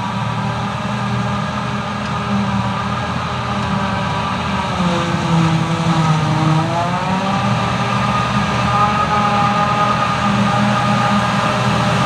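Claas Jaguar forage harvester chopping grass for silage and blowing it into a trailer, with a John Deere tractor running alongside: a steady hum of engines and machinery. The pitch sags for about two seconds around five seconds in, then recovers, and the sound grows a little louder as the machines come closer.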